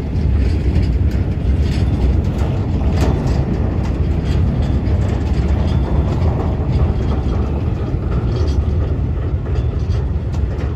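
Freight train of covered bogie boxcars rolling past on the rails: a steady low rumble of wheels on track with scattered clicks and knocks.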